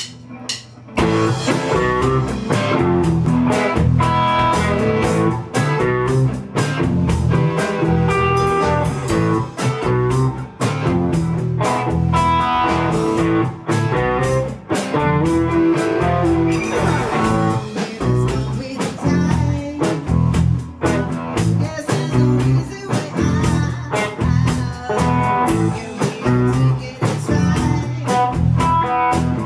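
A band playing live with electric guitars and a drum kit, starting about a second in.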